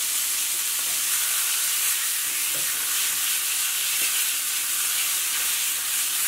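Diced chicken frying in hot olive oil in a skillet, a steady high sizzle, with a couple of faint knocks as the pan is tossed about midway.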